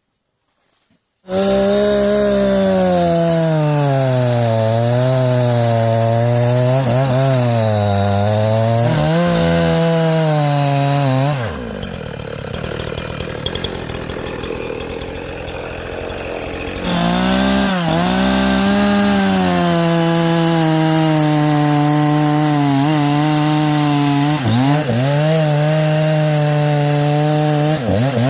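Chainsaw cutting into a large log, its two-stroke engine running at high revs, its pitch sagging and recovering as the chain bites under load. Just past the middle the engine tone drops out for a few seconds, leaving a quieter rough grinding, then the saw comes back at a steady high pitch.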